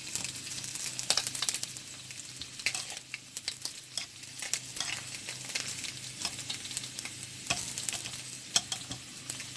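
Chicken skin frying in its own rendered fat in a hot frying pan: a steady sizzle with irregular sharp pops and crackles as the skins crisp.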